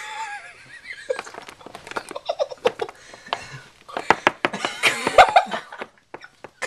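Several people laughing and giggling, in short repeated bursts, loudest about four to five seconds in.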